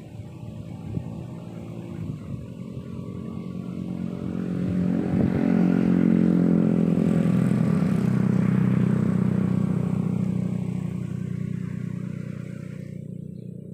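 A small engine passing by, growing louder over a few seconds, holding steady, then slowly fading away.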